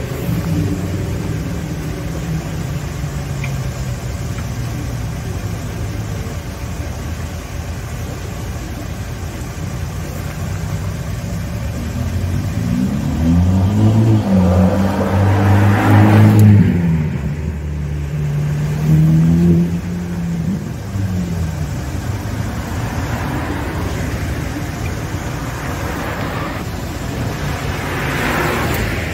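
Street traffic under a steady engine drone, then a Ferrari Roma's twin-turbo V8 rising in pitch as it accelerates past close by, the loudest moment in the middle. A smaller engine surge follows, and another car rushes past near the end.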